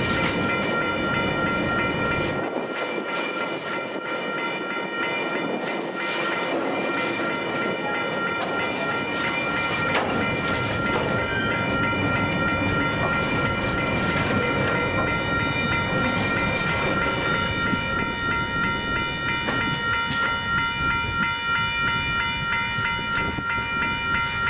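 Empty container flat wagons of a freight train rolling past at a level crossing, wheels clicking over the rail joints with a steady rumble. Over it the crossing's electronic warning bell rings on and on in quick, even pulses.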